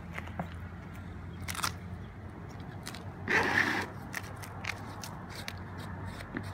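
A metal putty knife scraping and scooping gritty cement mortar in a plastic bowl. There is one louder scrape about halfway through, among scattered light clicks and taps, over a steady low hum.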